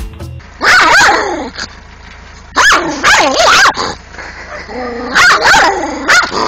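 A dog barking in three long, wavering calls, each about a second, with pauses between.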